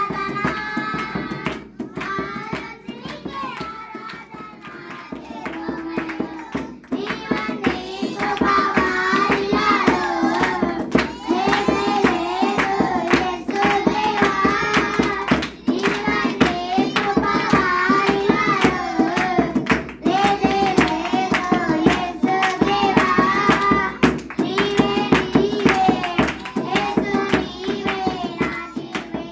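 A group of children singing a praise song together to hand clapping and the beats of a hand drum. It starts quieter and becomes fuller and louder from about seven seconds in.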